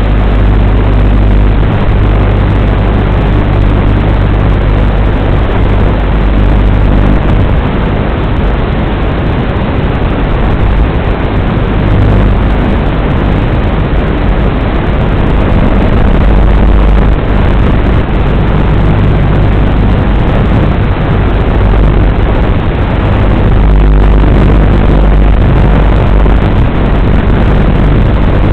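WLToys 12418 electric RC car driving: its motor and drivetrain make a rough, loud running noise with a low hum, heard through a narrow-band onboard camera microphone. The low hum fades for a stretch in the middle and returns near the end.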